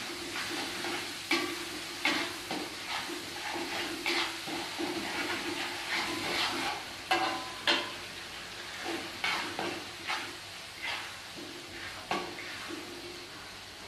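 Green chillies frying in hot oil in a wok with a steady sizzle. A spatula stirs and scrapes against the wok in irregular strokes.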